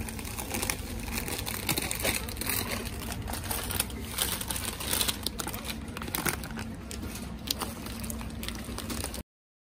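Crinkling and rustling handling noise with many small crackles, over a steady low hum. It cuts off suddenly near the end.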